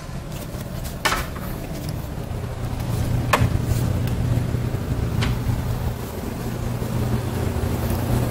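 A steady low mechanical hum that grows louder a couple of seconds in, with a few sharp knocks and bumps, about one, three and five seconds in.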